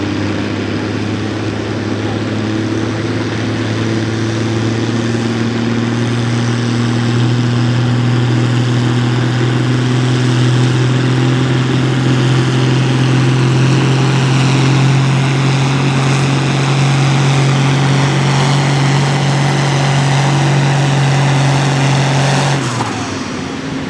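A Ford farm tractor's diesel engine pulling a weight-transfer sled under heavy load, a steady loud drone whose pitch creeps slowly upward as the pull goes on. About a second before the end the throttle is cut and the engine note drops away suddenly.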